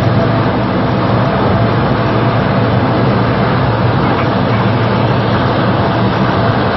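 Steady drone of a C-130 Hercules's four turboprop engines running on the ground, a loud even whooshing noise over a low propeller hum.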